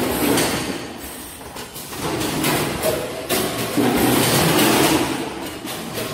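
Vertical form-fill-seal packing machine running through its bagging cycle. It makes noisy mechanical surges with clacks that repeat every second or two.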